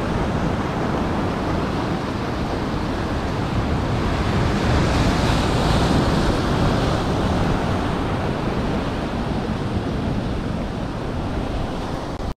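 Rough sea swell surging and breaking over a boulder bed: a steady, loud rush of surf that swells a little about five seconds in.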